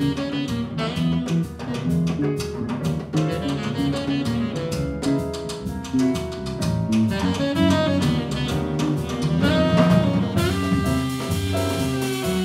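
Live jazz quartet playing: saxophone over electric keyboard, electric bass and drum kit. About ten seconds in, a brighter cymbal wash comes in.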